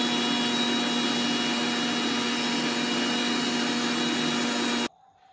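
Electric mixer grinder running at a steady speed with its small steel jar, blending egg mayonnaise: an even, constant-pitched motor hum over a whirring noise that starts abruptly and cuts off suddenly near the end.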